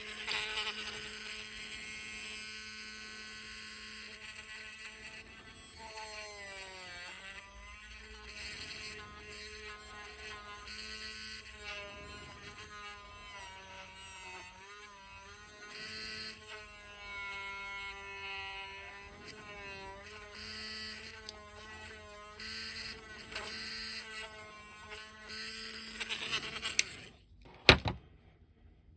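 Small electric hobby drill with a 1.0 mm bit running while drilling a hole through a small plastic piece, its motor pitch dipping and recovering as the bit bites. It stops near the end, followed by a single sharp knock.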